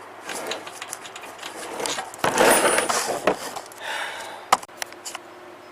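Rubbing and scraping of things being handled, with scattered clicks and knocks, a louder scraping rustle lasting about a second in the middle, and one sharp click near the end.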